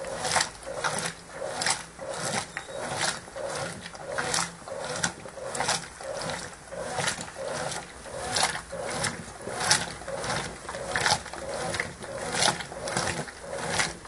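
Brastemp Ative 11 kg top-load washing machine agitating a load in soapy water with its lid open: rhythmic sloshing and swishing that surges about one and a half times a second as the agitator turns back and forth.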